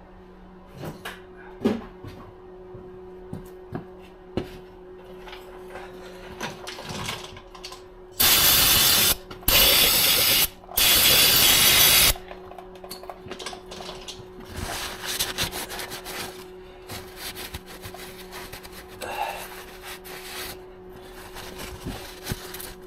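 Three hissing bursts of spray, about a second each, in quick succession, from a can of aerosol brake cleaner being sprayed to clean fluid off a freshly fitted plug. Scattered clicks and rubbing from hands and tools come before and after.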